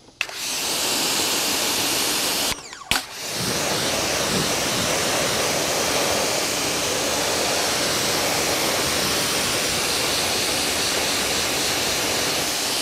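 Pressure washer spray gun blasting water onto an alloy wheel, rinsing off the wheel cleaner. A steady hiss of spray that stops for about half a second around two and a half seconds in, with a click as the trigger goes, then runs on evenly.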